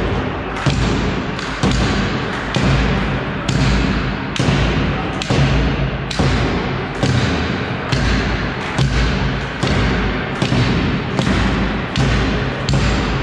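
Heavy thuds repeating at a steady pace of a little more than one a second, each ringing briefly in the echoing sports hall.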